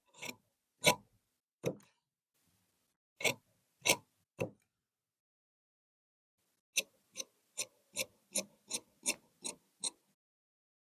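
Tailor's shears snipping through cloth: a few separate sharp snips, then a quick even run of about nine snips, about two and a half a second, near the end.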